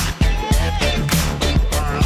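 Background music with a steady funk beat, a bass line and a sung vocal line.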